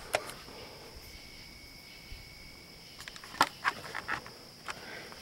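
Steady chorus of night insects such as crickets, a high continuous chirring. A few sharp clicks and knocks cut in around three to four seconds in.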